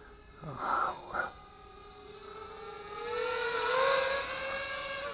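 Redcat Carbon 210 racing quadcopter's 2204 2500KV brushless motors and propellers whining in flight, rising in pitch and swelling louder about three to four seconds in as the drone comes closer, then easing. Two brief whooshes come a little under a second in.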